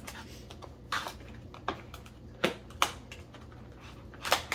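A takeout food container being pried open by hand: a handful of sharp cracks and crackles of the packaging, the loudest near the end.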